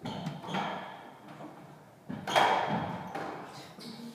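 Squash rally: several sharp, echoing hits of the ball off racquets and court walls, the loudest a little past two seconds in, with brief squeaks of court shoes on the wooden floor.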